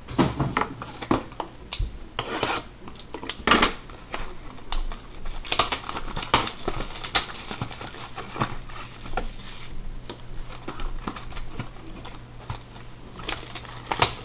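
Plastic shrink wrap and card-pack wrappers crinkling and rustling as hands handle and open trading card boxes, with irregular crackles and light knocks of cardboard.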